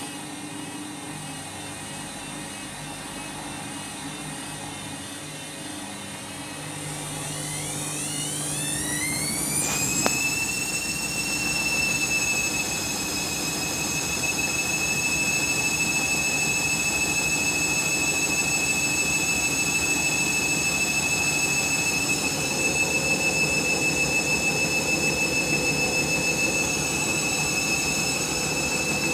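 Candy washing machine winding up into a spin: a low hum, then a rising motor whine from about seven seconds in that levels off about ten seconds in, with a brief knock, into a steady high whine as the drum holds its spin speed. The drum is overloaded and full of suds, which the owner expects to set off a sud lock.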